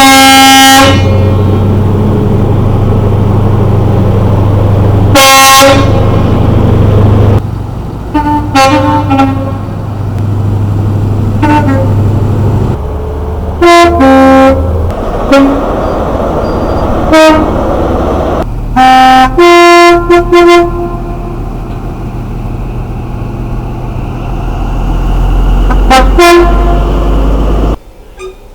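Two-tone horns of British diesel locomotives and trains sounding a dozen or so short blasts, some single toots and some paired high-low calls. A steady diesel engine hum runs beneath them in the first half, and the background changes abruptly a few times between recordings.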